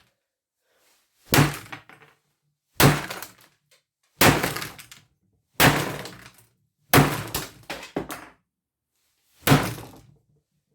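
Repeated hard blows struck on a computer: about seven sharp hits, roughly one every second and a half, each with a short rattling decay.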